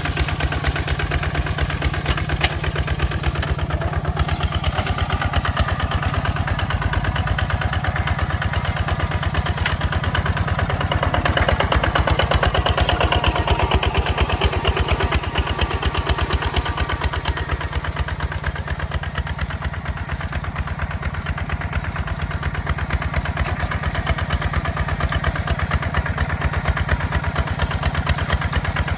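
Tractor engine running steadily with an even, rapid firing beat. It grows louder for several seconds partway through, then settles back.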